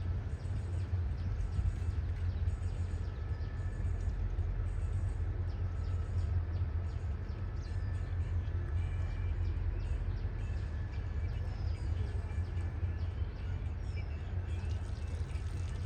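Steady low rumble of a diesel train engine running, with a few faint high chirps in the second half.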